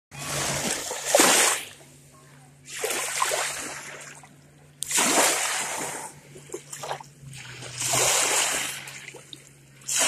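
Small lake waves breaking and splashing at the shoreline, one washing in every two to three seconds, each swelling and fading over a second or so.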